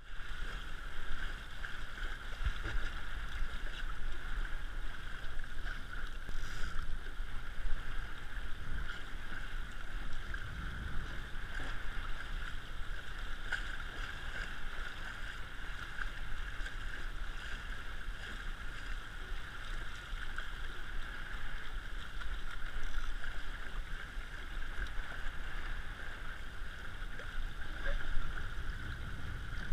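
RS100 sailing dinghy under way: a steady hiss of water rushing past the hull, with uneven low rumbling from wind on the camera microphone.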